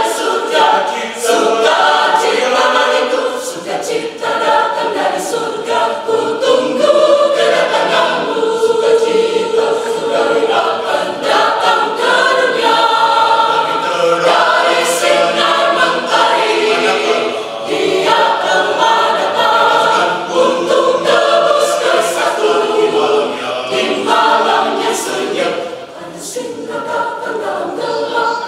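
Mixed choir of men's and women's voices singing together in harmony.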